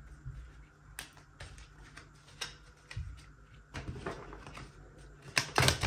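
Tarot cards being shuffled by hand: a few scattered taps and clicks, then from about four seconds in a dense run of rapid card clicks, loudest near the end.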